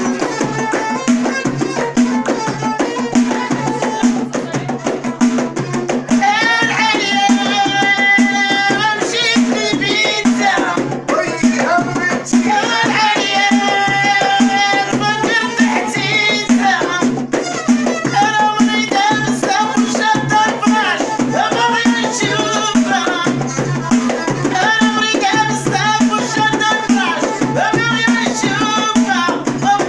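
Moroccan houariyat folk music: a steady fast rhythm on a hand-held frame drum with hand clapping, and from about six seconds in, women's voices singing the melody with violin.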